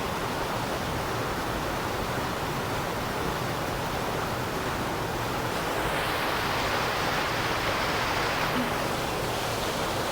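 River water rushing steadily: the river is running high and heavy after hurricane rains.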